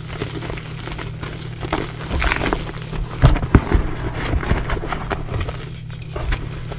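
Gym chalk blocks crushed by hand in a bowl of loose chalk powder: soft crunching and crumbling, with a burst of louder crunches a little past halfway, over a steady low hum.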